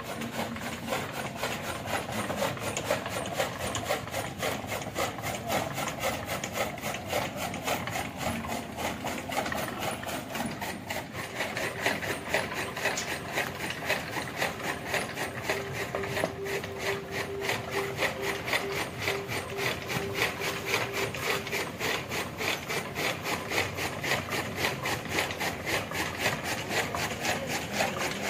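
Bull-powered gear toka machine running: its metal gearing and drive clatter in a quick, even rattle. A steady squeak joins in for several seconds midway.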